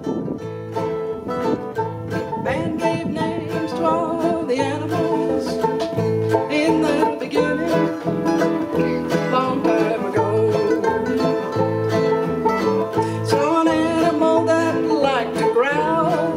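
Acoustic string band playing a country-folk tune: mandolins and acoustic guitars strummed and picked together in a steady rhythm.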